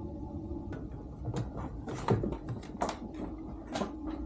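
A few short, sharp knocks and clicks scattered over a steady low hum.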